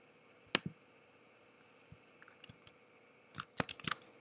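Computer keyboard and mouse clicks: one sharp click about half a second in, then a quick run of key presses near the end as a Command-Shift-Tab shortcut is struck.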